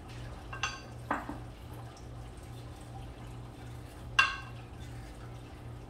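A paring knife and cut potato pieces knocking against a ceramic bowl as potatoes are cut by hand over it. There is a light ringing clink, then a short falling plop about a second in, and a louder ringing clink near four seconds, over a low steady hum.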